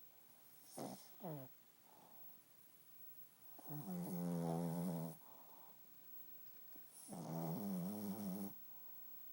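Shih Tzu snoring in its sleep. There are two short snorts falling in pitch about a second in, then two long, even snores of about a second and a half each, a few seconds apart.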